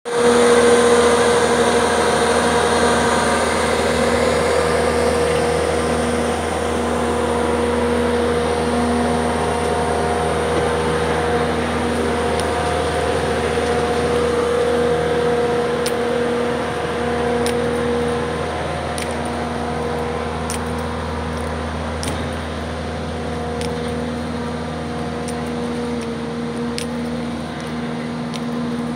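Skid-steer loader's diesel engine running at a steady idle, an even hum that doesn't rise or fall. A few faint clicks come through in the second half.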